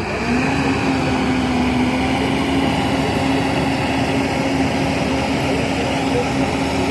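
A heavy vehicle's engine running steadily at raised revs, with a steady whine that rises briefly at the start and then holds its pitch.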